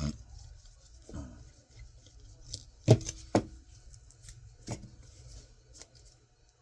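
Hard-drive parts and a small tool being handled, giving about five sharp clicks and knocks. The loudest pair comes about three seconds in.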